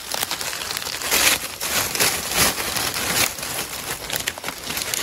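Dry leaf litter crunching and rustling up close, in an irregular run of crackles.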